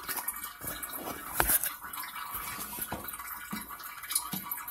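Light dripping and small splashes of water inside a toilet tank: a few separate drops, the loudest about a second and a half in, with no water running because the supply is shut off.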